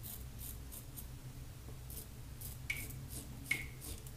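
Fine Accoutrements Marvel double-edge safety razor scraping through just over two days' stubble on the upper lip in short, faint crisp strokes repeated every few tenths of a second, with two sharper ticks about two-thirds of the way through.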